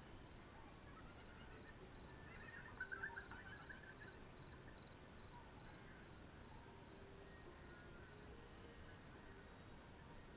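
Near silence with a faint, even cricket-like chirping, two to three chirps a second, fading out near the end. There is a brief burst of higher twittering about three seconds in.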